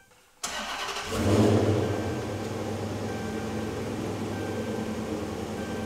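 Dodge Charger R/T's 5.7-litre Hemi V8 started: the starter cranks for under a second, the engine catches and revs up briefly, then settles into a steady idle.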